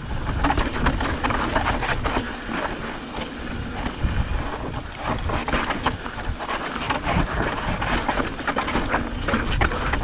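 Mountain bike descending a loose, sandy dirt trail: tyres crunching over the dirt and the bike rattling with many quick clicks over a steady low rumble.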